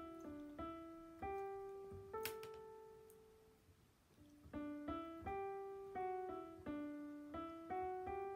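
Background piano music: a slow melody of single struck notes that die away, thinning to a lull about three to four seconds in before the notes pick up again.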